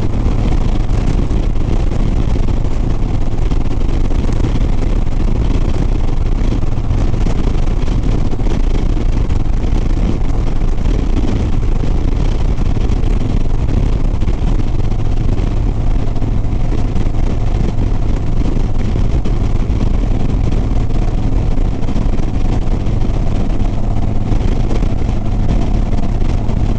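Harley-Davidson Sport Glide's V-twin engine running steadily at highway cruise, mixed with wind and road noise on the rider's microphone.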